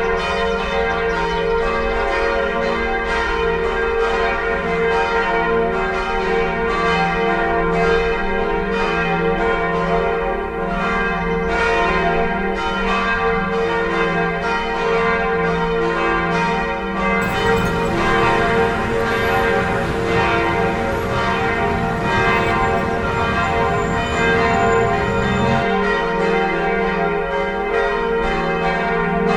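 Church bells ringing together, struck again and again in quick succession so that their tones overlap and hum on. A rushing noise runs underneath for several seconds past the middle.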